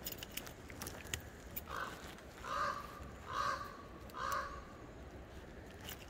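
A raven gives four short calls, about a second apart, starting a little under two seconds in. A few faint sharp clicks come before them.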